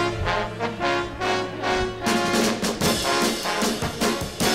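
Instrumental background music: a pitched melody, joined by a steady drum beat about two seconds in.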